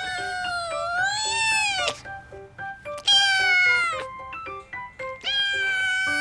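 A kitten meowing three times in long, drawn-out calls, the first nearly two seconds long and rising then falling in pitch. Light background music of short plucked notes plays underneath.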